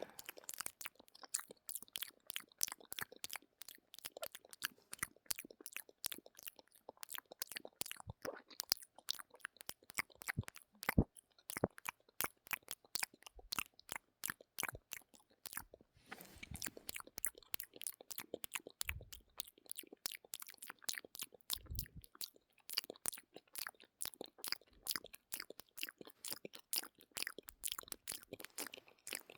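Mouth sounds: quick wet clicks and smacks of tongue and lips, several a second in an unbroken run.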